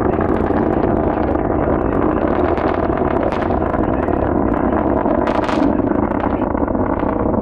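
Distant SpaceX Falcon 9 v1.1 rocket's nine Merlin 1D engines during ascent: a steady loud rumble with sharper crackles now and then, the strongest about five and a half seconds in.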